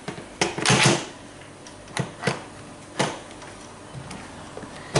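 Lid of an electric pressure cooker being fitted and twisted onto the pot to line it up and lock it: a short scraping rub about a second in, and several sharp clicks and knocks of lid against rim.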